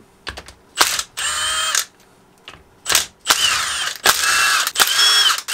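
Red cordless impact driver spinning out the 3/8-inch intake manifold bolts on a Johnson 70 hp outboard powerhead, in about four short bursts, its motor whine bending up and down over the hammering rattle.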